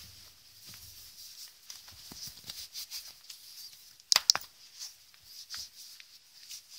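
Wet hands handling a metal flashlight just lifted out of a bowl of water: small drips and rubbing, with two sharp clicks close together about four seconds in.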